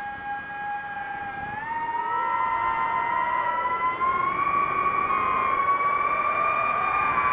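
Whine of a DJI FPV drone's motors and propellers in fast flight. The pitch is steady and lower at first, glides up about two seconds in as the throttle rises, and then holds high.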